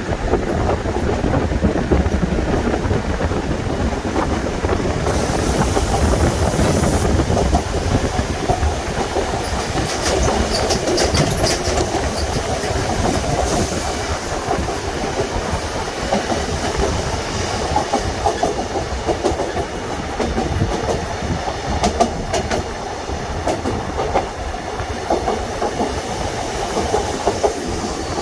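Seoul Subway Line 2 electric train running over a railway bridge, with a steady rumble and wheels clattering over the rail joints. There is a heavy low buffeting of wind on the phone's microphone.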